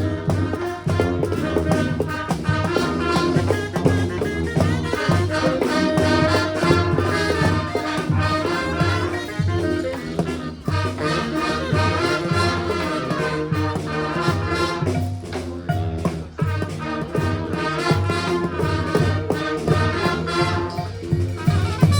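Brass band playing a tune: several horns together over a steady beat with repeated low bass notes.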